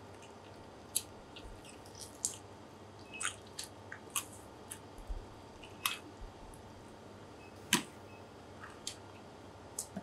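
Hands peeling the skin off a golden cuttlefish's body on a wet wooden cutting board: faint, irregular short wet clicks and smacks over a steady low room hum.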